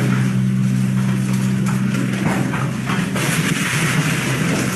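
Excavator engine running with a steady low hum, with a few knocks around the middle.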